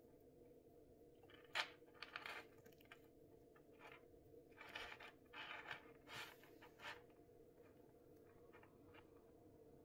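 Faint scratchy rustling of polyester thread being knotted and pulled tight between fingers, in short bursts, with one sharp click about a second and a half in.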